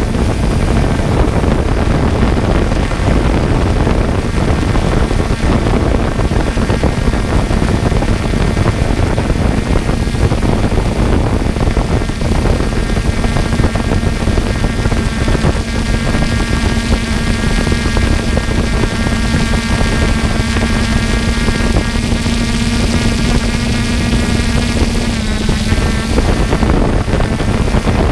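Quadcopter drone's propellers running with a steady whine over rushing wind noise; the pitch shifts slightly near the end.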